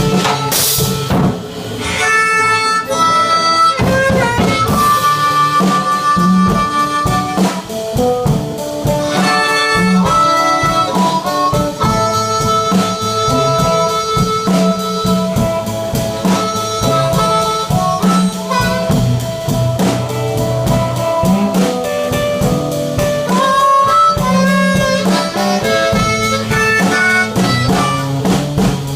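Live blues band playing an instrumental break: harmonica takes the lead with held and bent notes over electric guitar and a drum kit.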